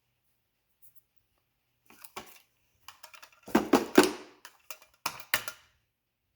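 Plastic clicks and knocks from the LeFant M210 robot vacuum's dust bin and filter being handled and cleaned out. They come in a few short clusters, and the loudest falls about three and a half to four seconds in.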